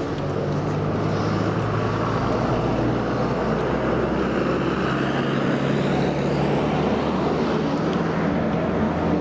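Motor vehicle engine running close by, its low hum fading out about seven seconds in, over a steady wash of road traffic noise.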